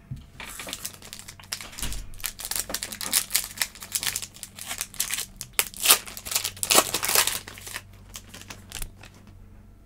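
Foil football-card pack wrapper crinkling and tearing as it is ripped open: a dense run of sharp crackles, loudest about six to seven seconds in, dying away near the end.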